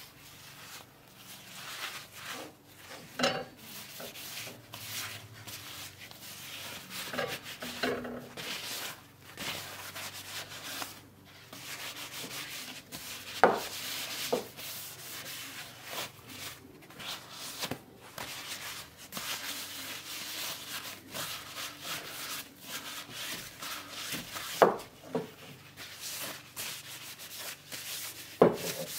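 A paper towel wiped and rubbed over the wooden body of an antique hand plane, in a run of short scratchy strokes. Four sharp knocks come from the plane being handled on the wooden workbench.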